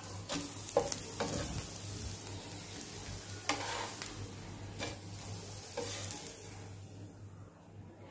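A hot dosa tawa sizzling, with a few short scrapes of a spatula as a folded dosa is lifted off. The sizzle dies away near the end.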